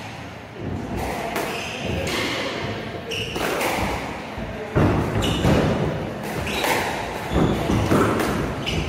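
Squash rally: the ball cracks off rackets and the court walls in a series of sharp hits that echo in the enclosed court, loudest in the second half. Short shoe squeaks on the wooden floor come between the hits.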